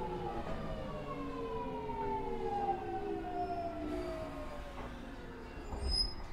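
Mitsubishi GTO-VVVF inverter and MT73 traction motors of a JR E217 series electric train, heard aboard the motor car, whining in several tones together that fall steadily in pitch as the train slows under braking. Near the end, a short high tone and a low thump.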